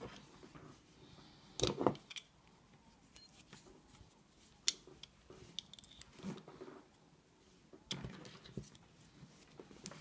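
Handling sounds and sharp metal clicks as a pick and tension wrench are taken up and worked into the keyway of a steel disc padlock, with a cluster of louder knocks about two seconds in and scattered ticks and scrapes after.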